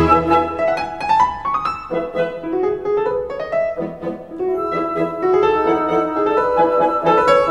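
Background solo piano music in a classical style, with flowing runs of rising notes.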